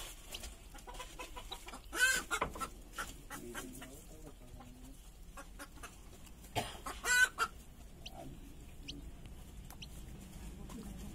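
Desi chicken clucking: two loud bouts of calls, about two seconds in and again about five seconds later, with a few faint ticks between.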